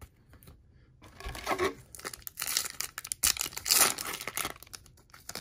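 Foil wrapper of an Upper Deck hockey card pack being torn open and crinkled. Irregular crackling starts about a second in, loudest in two bursts near the middle.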